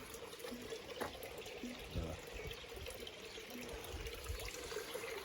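Water trickling steadily into a garden pond, with a low bump about two seconds in.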